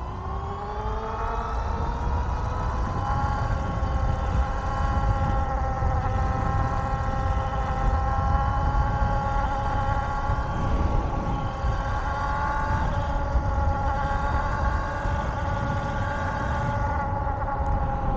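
High-power electric bike motor whining as it accelerates, its pitch rising for the first few seconds and then holding nearly steady at speed, with a low rumble underneath.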